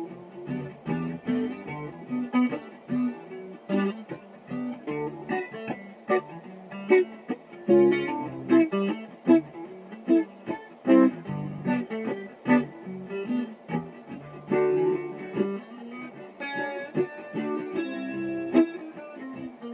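Guitar played solo: a steady stream of quickly picked notes and chords.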